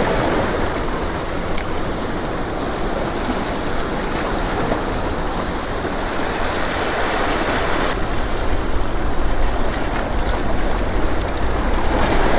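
Seawater of a lagoon inlet rushing and washing over the shoreline rocks: a steady noise without pauses, with wind rumbling on the microphone underneath.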